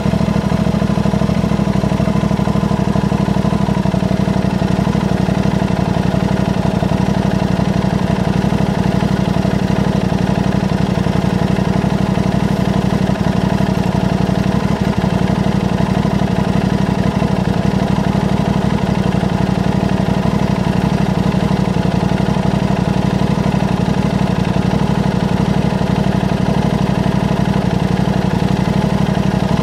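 Aprilia RS660's parallel-twin engine idling steadily through a Mivv aftermarket exhaust.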